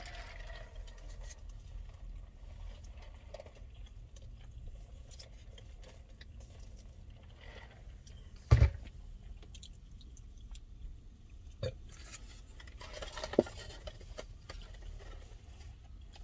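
A person chewing food, with small mouth and handling sounds over a steady low hum. A single sharp thump about eight and a half seconds in is the loudest sound, and two smaller knocks follow a few seconds later.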